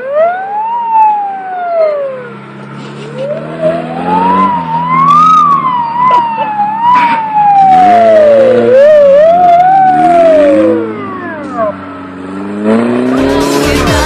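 Off-road vehicle's engine revving hard, with a loud whine that rises and falls in pitch several times as the revs climb and drop. Music with a beat comes in near the end.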